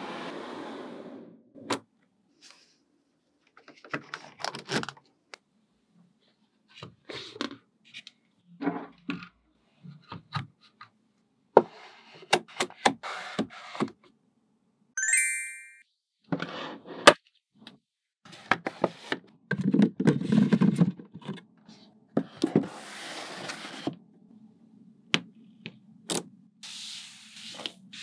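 Small magnetic balls clicking and snapping together as a model is built by hand, mixed with card and mat pieces sliding and scraping into place, in short bursts with pauses between them. About halfway through there is a brief high ringing tone.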